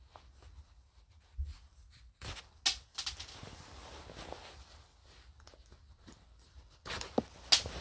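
A curved karambit knife cutting the buttons off a lab coat: fabric rustling, with sharp snaps about two seconds in and again near the end as the button threads give way.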